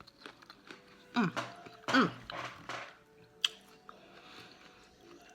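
Close-up mouth sounds of someone eating corn on the cob: wet chewing and smacking clicks. About one and two seconds in come two falling "mmm" moans of enjoyment.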